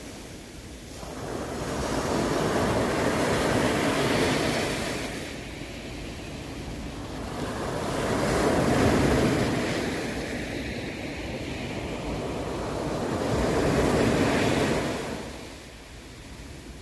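Sea waves breaking and washing up the shore, the rushing surf swelling and fading three times, about five seconds apart.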